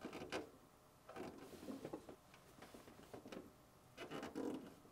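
Faint rustling and small clicks of fingers twisting two thin stripped wire ends together, coming in four short bursts.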